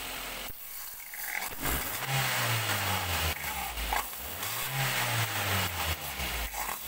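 Aerosol cleaner hissing in spurts into the throttle body of a running Daihatsu Gran Max engine. Under the hiss, the engine speed rises and falls twice as it draws in the spray, part of cleaning the carbon fouling out of the throttle body.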